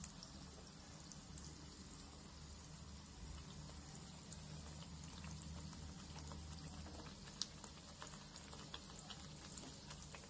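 Wheat-flour malpua batter frying in hot oil in a pan: a faint, steady sizzle with scattered small crackles.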